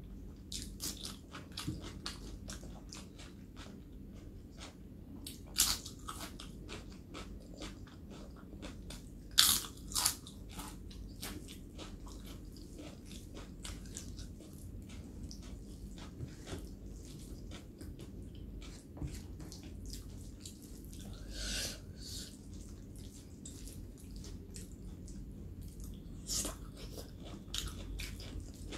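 A person eating close to the microphone: crisp crunching bites and chewing. The loudest crunches come about six and ten seconds in.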